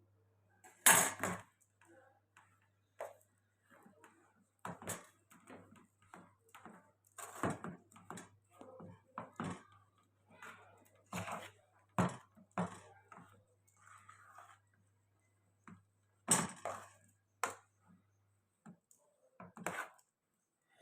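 Kitchen prep sounds: scattered, irregular knocks and clatters of utensils and dishes, over a faint low hum that stops near the end.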